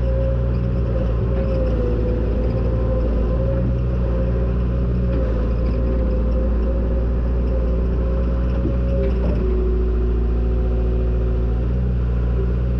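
John Deere 270 skid steer's diesel engine running steadily as the machine drives, heard from inside the cab, with a steady whine over the engine. A few short clanks come in about two-thirds of the way through.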